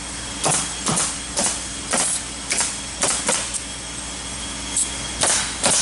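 Pneumatic stapler driving staples into OSB roof decking to fasten it down tight: a sharp crack about twice a second, with a pause of about two seconds in the middle before the shots resume. A steady hiss runs underneath.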